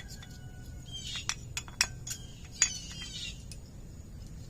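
Sharp metallic clinks of brake pads and their clips being handled and fitted into a rear disc brake caliper, about six in quick succession. Birds chirp in the background.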